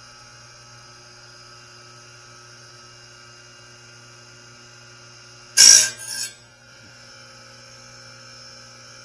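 A steady electric hum, broken about five and a half seconds in by one brief, loud grinding scrape in two quick parts, as a tooth of a sawmill bandsaw blade is sharpened.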